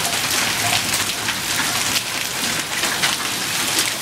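Hail and rain falling hard on a wet concrete patio: a dense, steady patter flecked with countless small sharp ticks of ice pellets striking.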